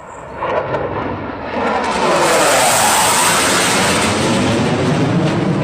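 Eurofighter Typhoon's twin turbofan jet engines flying low overhead. The jet noise swells quickly over the first two seconds into a loud, steady sound, with a sweeping, phasing shift in tone as it passes.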